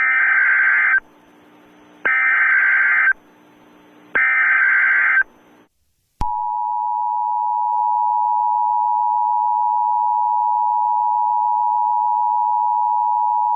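Emergency Alert System broadcast opening: three one-second bursts of modem-like SAME header data, a second apart, then about six seconds in the steady two-tone EAS attention signal starts and holds.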